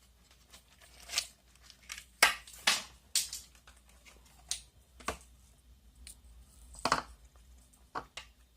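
Small plastic glitter container and packaging being handled: irregular crinkles, clicks and taps, with a couple of louder rustles, as the star-shaped glitter is opened and measured out.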